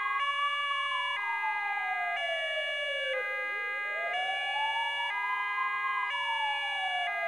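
Ambulance siren wailing, a slow rise and fall about every three seconds, layered over a two-tone hi-lo pattern that alternates pitch once a second.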